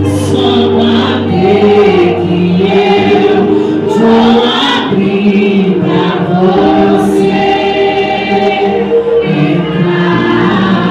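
A vocal group singing a gospel praise song together in held, sustained notes over a steady low accompaniment.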